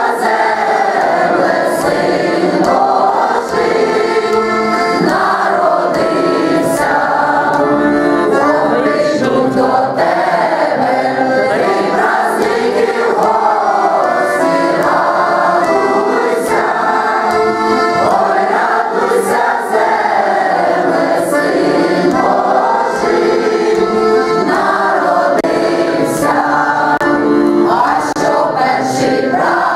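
A mixed group of men and women singing a Ukrainian folk song together, accompanied by a button accordion (bayan).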